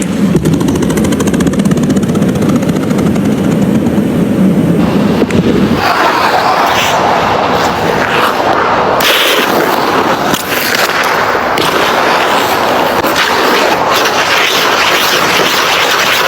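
Figure skate blades on ice: a steady low rush of gliding for about the first five seconds, then brighter, harsher scraping with sharp bites of the edges cutting into the ice.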